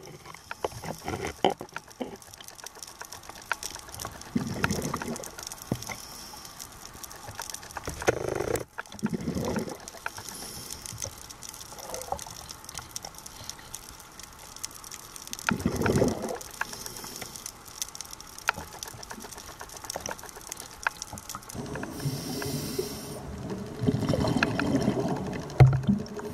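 Water and bubble noise around a camera under water, with a steady fine crackle. A few louder swells of bubbling come through, the biggest about sixteen seconds in, and a rougher rush near the end.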